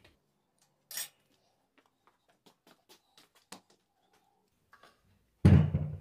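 Small metal parts and tools clinking and tapping on a workbench: one sharp click about a second in, then a run of light taps. Near the end a sudden loud, low-pitched sound that dies away over about a second.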